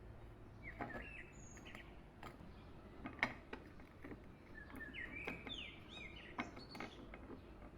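Small birds chirping in short sweeping phrases, in two bursts about a second in and around five to six seconds in, with scattered sharp clicks or taps, the loudest about three seconds in.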